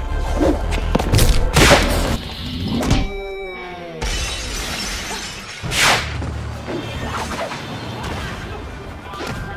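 Music laid over staged fight scenes, with several sharp hits and thuds in the first three seconds, a noisy crash from about four seconds in, and one loud hit near six seconds.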